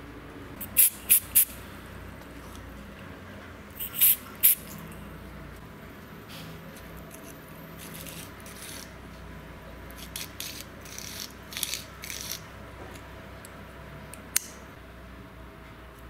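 Metal parts being handled on a steel threaded rod, making short light metallic clicks and scrapes. There are three near the start, three more about four seconds in, a cluster around ten to twelve seconds, and one sharp click near the end.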